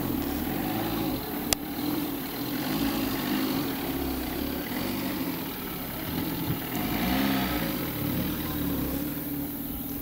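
Lada saloon car's engine pulling away across a rough grassy field, its pitch rising and falling as the throttle changes. A single sharp click about a second and a half in.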